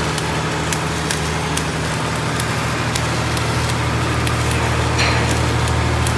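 Electric arc welding on a bulldozer's steel frame: the arc sizzles continuously with frequent sharp crackling pops. Under it runs a steady low engine hum.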